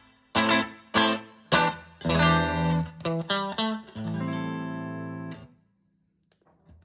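Tokai TST95 Stratocaster-style electric guitar played through a Koch Jupiter Jnr valve amp: a short phrase of struck chords, the last held for over a second and then cut off. A second or so of silence follows.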